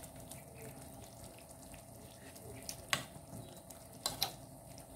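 A pot of fish stew bubbling faintly on the stove with the heat just switched off, a soft steady simmer with a few sharp clicks about three and four seconds in.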